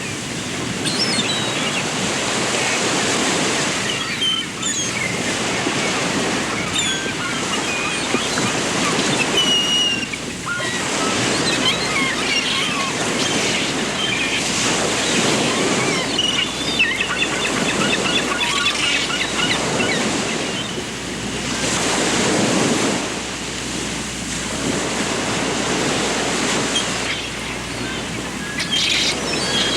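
Rushing water that swells and eases every few seconds, with many small birds chirping over it.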